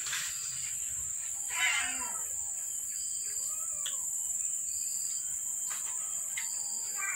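Cats meowing: a loud meow about one and a half seconds in, then a shorter, softer one a couple of seconds later. A steady high insect buzz runs underneath.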